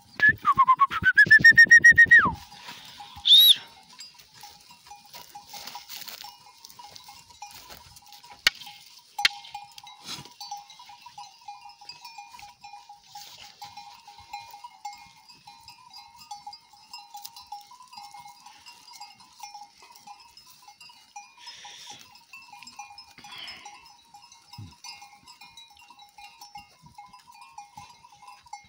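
A loud, wavering bleat from the grazing flock of sheep and goats, about two seconds long right at the start, with a brief high cry just after. Then the flock's neck bells ring and clink steadily as the animals graze.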